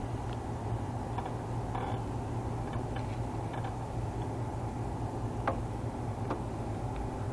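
Small motorcycle engine idling steadily, with a light ticking and a few faint clicks over the low hum.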